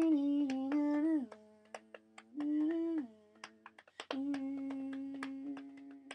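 A person humming a tune in held notes that step down and slide from one pitch to the next, with short clicks scattered through it.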